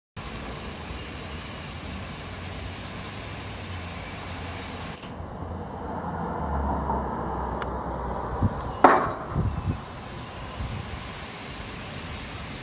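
Steady outdoor background noise, with a sharp knock about nine seconds in followed by a few low thumps.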